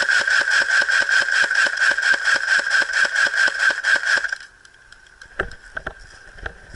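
Airsoft electric gun firing one long full-auto burst, a steady motor whine with fast, even rattling cycles, stopping suddenly a little over four seconds in. Scattered thumps follow near the end.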